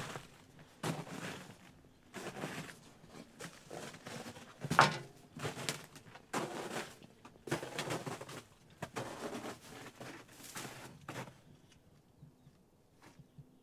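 Footsteps on patchy snow and dry fern litter, about one step a second, fading out near the end.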